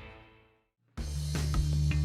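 Background music fades out, leaving a moment of silence. About a second in, a new music track starts abruptly with a steady bass line and drum hits.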